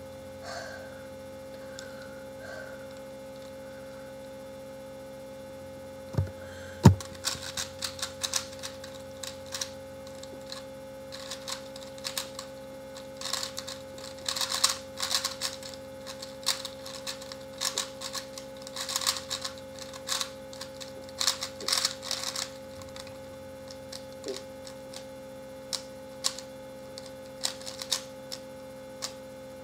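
Rubik's cubes being speed-turned: rapid plastic clicking of the layers in dense runs, thinning out in the last several seconds, after two sharp thumps about six and seven seconds in. A steady electrical hum sits underneath.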